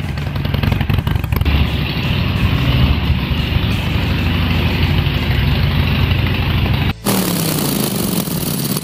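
Harley-Davidson motorcycle's V-twin engine running with a pulsing low rumble, loudest as the bike rides up close. About seven seconds in it cuts to a loud hiss with a falling tone.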